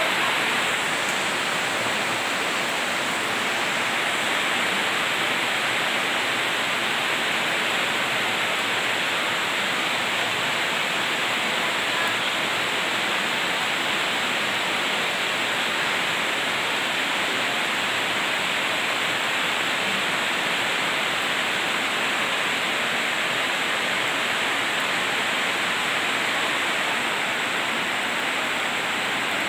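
Heavy rain falling steadily on roofs and trees, a constant even hiss that does not let up.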